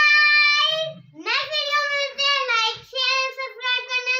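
A young girl singing out in a high voice: a long held note, a second held note after a short break about a second in, then quick syllables chanted on one pitch.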